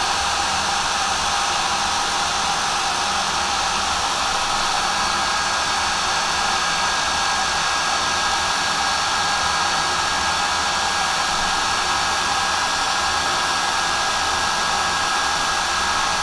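Heat gun running steadily, blowing hot air. A steady whine from its fan motor sits over the even rush of air.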